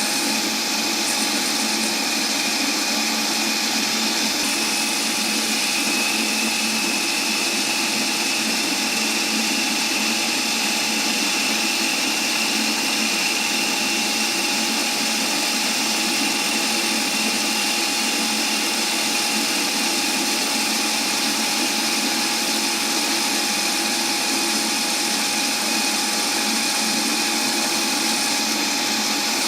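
South Bend shop lathe running steadily while turning down a hickory wood shaft, a constant motor whine under the steady hiss of cutting.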